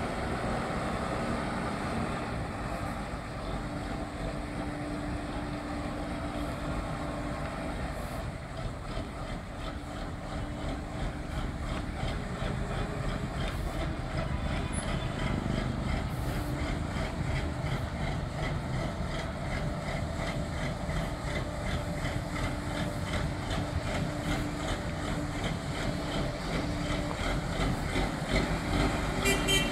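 ACE AF100D 10-ton diesel forklift's engine running steadily as the truck drives, getting somewhat louder toward the end.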